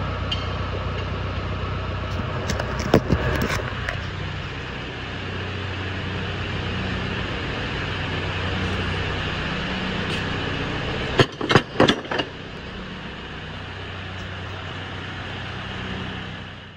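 Tractor engine running steadily, with a few sharp knocks about three seconds in and a quick cluster of four or five about eleven seconds in.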